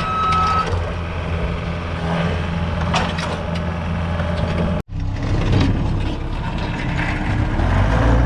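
Manitou skid steer's diesel engine running under load as the machine is driven, with one short reverse-alarm beep at the start and a few knocks about three seconds in. The sound cuts out for an instant about five seconds in, then the engine carries on.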